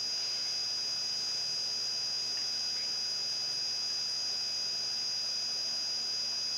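Steady electronic hiss with a thin, high-pitched whine held at one pitch, and no other sound.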